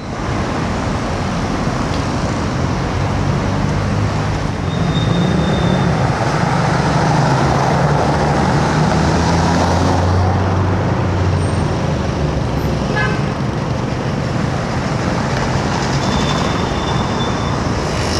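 Road traffic running past steadily, with a heavier vehicle's engine hum swelling through the middle seconds.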